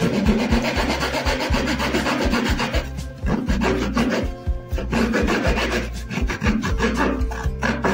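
Hacksaw blade sawing back and forth through the tube of a large sky-shot firework, rasping stroke after stroke, with short breaks about three and four and a half seconds in.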